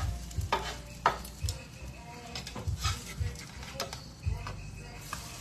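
Keto pancake batter sizzling in a skillet while a metal utensil clinks and scrapes against the pan in about a dozen irregular strokes.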